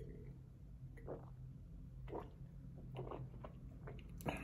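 Faint wet mouth sounds of a sip of white wine being taken and worked around the mouth: a few soft sips and swallows about a second apart, with a sharper click from the lips near the end.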